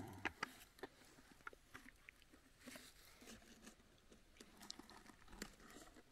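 Faint scattered crackles and rustles of hands handling snacks and a crisp packet on dry fallen leaves.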